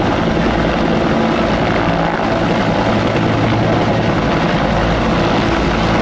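Two Bell UH-1-type military helicopters hovering low, their turbines and two-bladed rotors running steadily and loudly.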